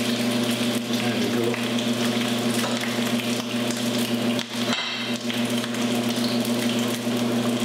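Bacon frying in a pan, a steady sizzle with a few light taps of metal tongs as strips are lifted out, over a steady low hum.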